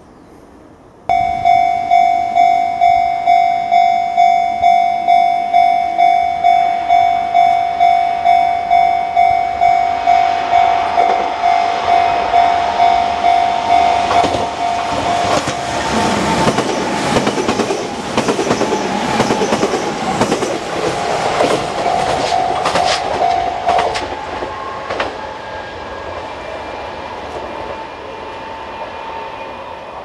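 Japanese railway level-crossing warning bell starts about a second in, ringing a steady ding-ding at about two strikes a second. A Kintetsu electric commuter train then runs through the crossing from about ten seconds in, its wheels clacking over the rail joints. The bell stops a little after twenty seconds and the train noise fades as it moves away.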